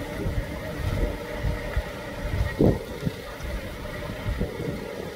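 Fire engine's diesel engine idling, a steady low rumble with a short knock about two and a half seconds in.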